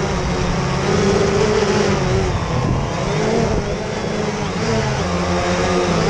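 Quadcopter's electric motors and propellers whirring loudly, several pitches wavering up and down together as the motor speeds change.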